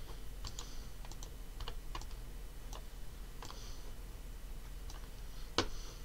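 Irregular clicks of a computer mouse and keyboard during CAD work, a dozen or so spread unevenly, with one sharper, louder click about five and a half seconds in.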